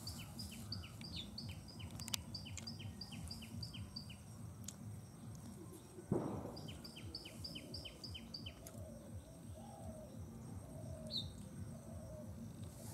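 A small bird calling in quick runs of short, high, repeated chirps, about three a second, over a steady low outdoor background noise; the chirping stops for about two seconds in the middle, around a thump about six seconds in.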